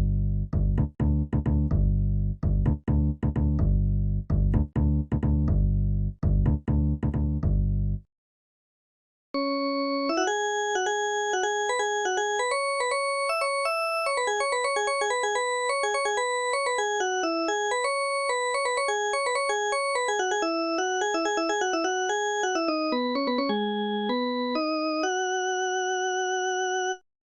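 Electronic keyboard instrument sounds. First comes a low bass line of short, repeated notes for about eight seconds, then a short gap. After that a melody plays on a sustained synth or organ-like tone, each note held evenly without fading, and it ends on a few long held notes.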